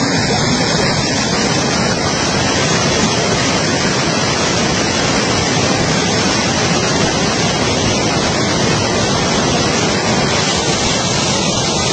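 Fast-flowing muddy floodwater rushing in a swollen river, a loud steady noise, with wind buffeting the microphone.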